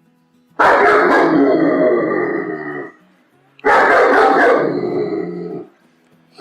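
Angry German Shepherd barking and growling in two outbursts of about two seconds each, each starting abruptly and tailing off, with a pause of about a second between them.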